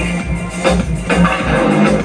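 Up-tempo pop dance music with a heavy bass and drum beat, played through a 5.2-channel transistor amplifier and its speakers.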